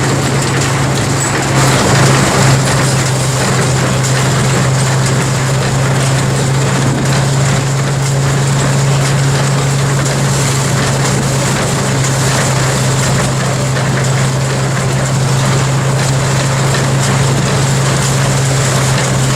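Threshing machine running steadily: a constant low hum with a broad rushing noise over it, a little louder for a moment about two seconds in.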